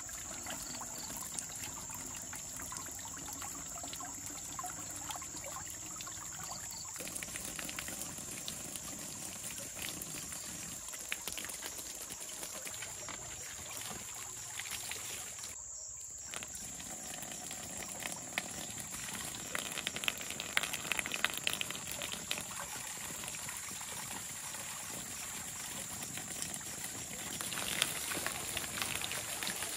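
Water running and trickling from a bamboo water pipe, pouring steadily, with a thin steady high tone above it. The sound changes abruptly twice along the way.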